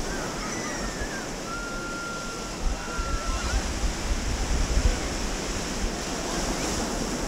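Small waves washing onto a sandy beach, a steady surf noise. From about a third of the way in, gusts of wind buffet the microphone in low rumbles.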